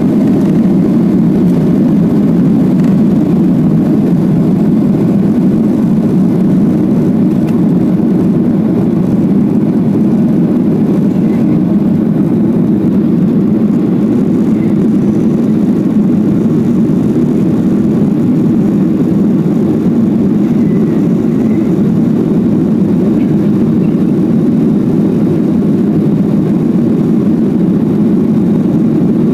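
Boeing 737-800 cabin noise at takeoff thrust: the CFM56-7B turbofans and airflow make a loud, steady rumble as the jet finishes its takeoff roll, lifts off and climbs.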